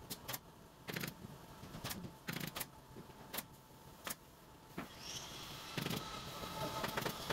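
Pneumatic staple gun firing staples through upholstery fabric into a sofa frame: about eight sharp shots at irregular intervals, stopping about five seconds in.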